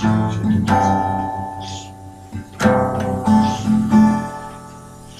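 Acoustic guitar strummed in a few loose chords, each left to ring and fade before the next.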